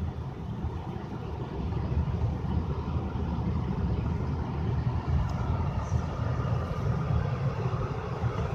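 Steady low rumble of a Toyota car's engine and road noise heard from inside the cabin while driving, slightly louder from about two seconds in.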